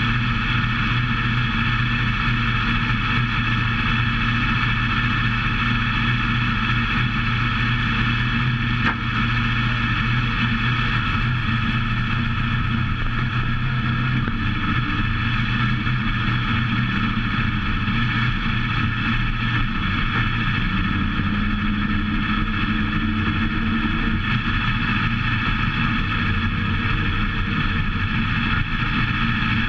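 Dirt-track modified race car's V8 engine running at a low, steady speed, heard from inside the cockpit as the car rolls slowly off the track.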